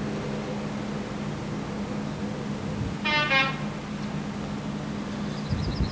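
InterCity 125 power car sounding its horn once, a short blast of about half a second around three seconds in, over a steady low hum and noise.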